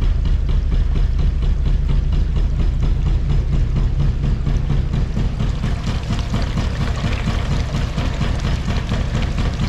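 Gold shaker table running: a steady low mechanical rumble with a fast, even knocking from its reciprocating drive, and water washing across the deck.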